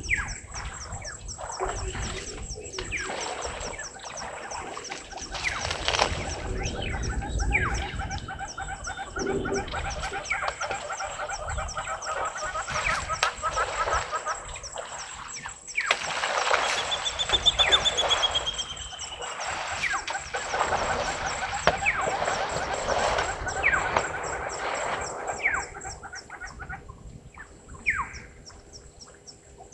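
Wild birds calling and chirping at a waterhole, with a clear falling whistle about halfway through, over a steady high-pitched tone.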